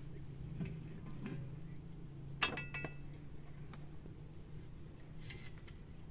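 A few light metal clinks from a large aluminium pot lid being handled, the loudest about two and a half seconds in with a short ring. A low steady hum runs underneath.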